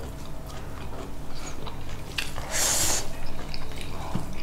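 Close-up chewing and biting of food during a mukbang, with small wet mouth clicks and a short louder noisy smack about two and a half seconds in.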